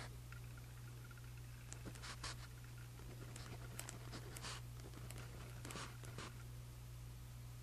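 Pen writing on the paper of a journal: a run of short, soft scratching strokes, densest from about two seconds in until just past six seconds.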